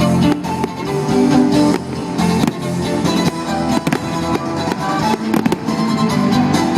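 Fireworks going off in scattered sharp bangs and crackles over music.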